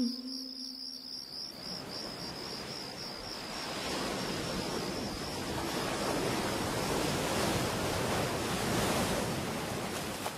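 Small waves washing in, swelling to a steady wash and easing near the end, with an insect trilling in quick high pulses over the first few seconds.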